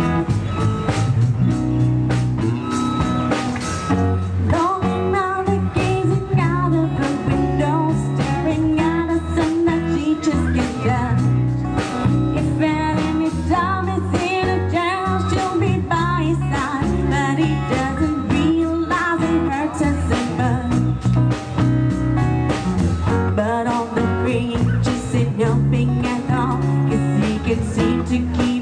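Live band playing through PA speakers: drum kit keeping a steady beat under bass and guitar.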